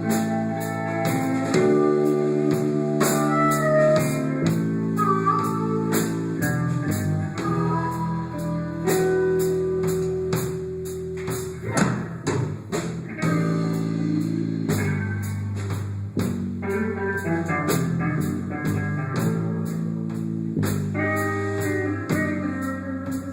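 Band music with guitar over a steady drum beat, instrumental, with no singing.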